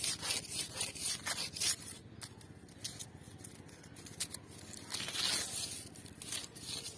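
Kittens' paws scratching and scraping on a wire-mesh cage floor: a run of short scratchy rustles, thick in the first two seconds, sparse after that, and clustering again about five seconds in.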